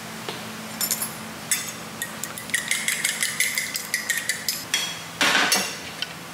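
A metal fork beating a raw egg in a ceramic plate: scattered taps at first, then a fast run of clinks with a light ringing from the plate. Near the end comes a brief, louder thump.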